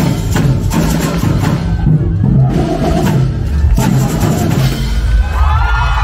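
Carnival samba batería playing: massed bass drums and percussion pounding out a fast steady groove. Near the end, high wavering cheers from the crowd rise over the drumming.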